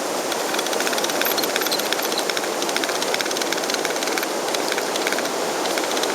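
Anchor line being wound onto a diver's reel: a fast, irregular clicking over a steady rushing noise of wind and water.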